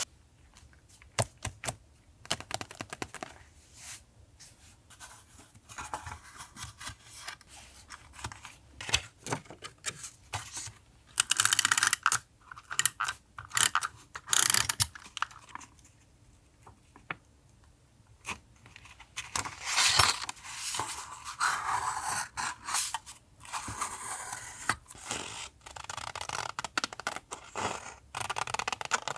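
Paper and sticker sheets being handled for journal collage: rustling and crinkling with many light taps and clicks, getting louder and busier around the middle and through the last third.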